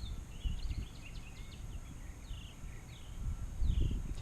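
Small birds chirping: many short, quick high calls, several sliding downward, over a low rumble that grows louder near the end.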